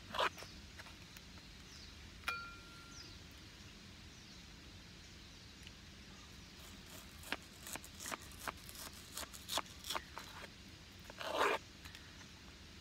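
Metal camp cookware and stones being handled: scattered knocks and clicks, a couple of short scraping crunches, and one metal clink about two seconds in that rings on briefly.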